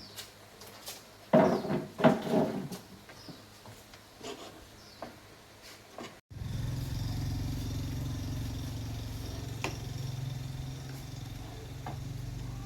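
A few clicks and rattles, then, after a sudden break about six seconds in, a steady low hum from the California amplifier, the humming fault under repair.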